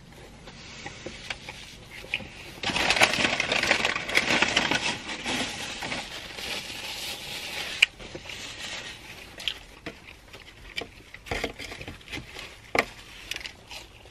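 Close-miked eating of a burger: a few seconds of crinkling and crunching noise, then chewing with scattered sharp mouth clicks.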